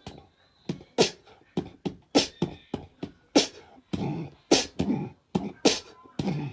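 Beatboxing: a fast, even rhythm of sharp mouth-percussion hits, about three a second.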